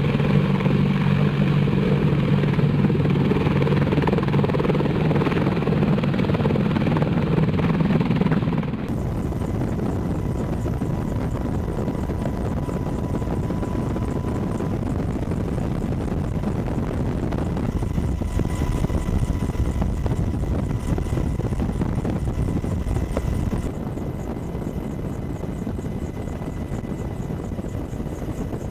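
Apache attack helicopter rotor and engine noise. It is steady and loud with a strong low drone for the first nine seconds, then changes abruptly to a quieter, even rotor wash with a faint high whine, and drops a little in level near the end.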